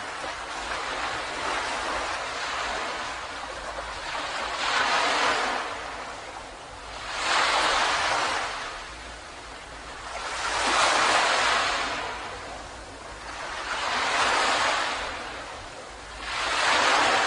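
Ocean surf breaking on a beach: a steady wash of water with a wave surging in and falling back about every three to four seconds, five times.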